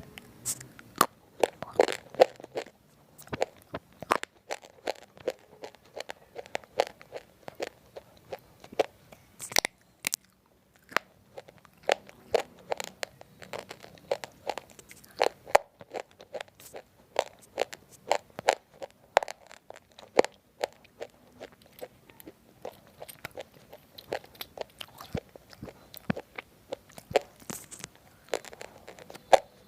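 Roasted multani mitti (fuller's earth) chips being bitten and chewed, giving crisp, dry crunches in quick, irregular runs.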